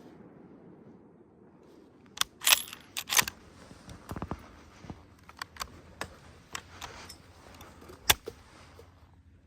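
A series of sharp metallic clicks and clacks, typical of a rifle and gear being handled: a loud cluster about two to three seconds in, lighter single clicks spaced through the middle, and one more loud clack near the end.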